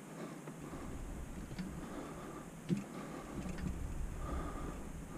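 Light metal knocks and clicks as a motorcycle's steel mainstand is moved and jiggled against the frame lugs while its pivot bolt is being lined up, the loudest knock a little past halfway, over a low rumble.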